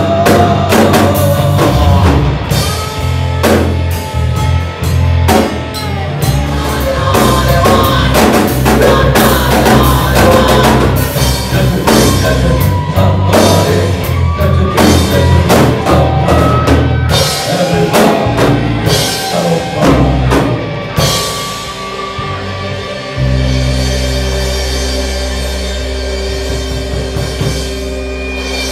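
Live rock band playing full out on drum kit, electric guitars and bass guitar, with a man singing over it. The drums stop a little after twenty seconds in, leaving a held chord ringing on guitar and bass.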